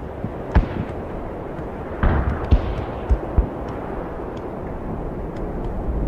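A low, steady rumble with several deep booms: one about half a second in, two around two seconds in, and one more a second later.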